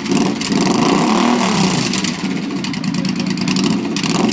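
2011 Suzuki Boulevard C50T's V-twin engine being revved through its exhaust, its pitch rising and falling with the throttle several times.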